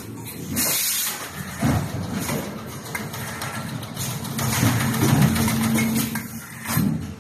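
Tekwell K358F cable tie injection molding machine and automatic packing machine running: a steady mechanical hum with a burst of air hiss about half a second in. A steady low tone rises out of the hum for a second or so in the second half.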